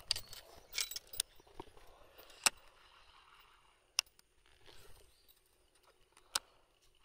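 Casting and handling a baitcasting rod and reel: rustling in the first second, then three sharp clicks spread over the following seconds.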